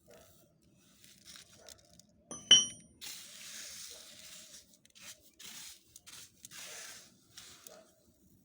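Kitchen utensil sounds: a single sharp, ringing clink of metal or glass about two and a half seconds in, then a run of short scraping, rustling strokes.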